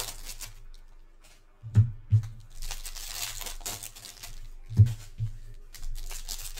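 Foil trading-card pack being torn open, its wrapper crinkling, with two pairs of short dull thumps from the pack and cards being handled against the tabletop.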